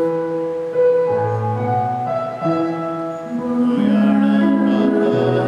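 Slow church music on a keyboard instrument: long, steady held chords that change about once a second.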